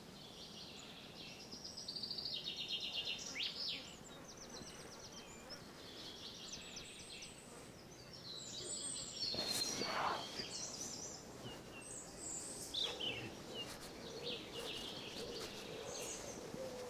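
Common nightingale singing in separate phrases of fast repeated notes, trills and short sweeping whistles, with pauses between phrases. A single knock comes about ten seconds in.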